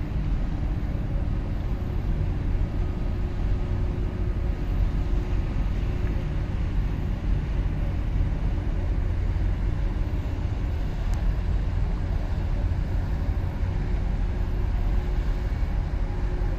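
Steady low engine rumble of a vessel underway, with a faint constant hum over it.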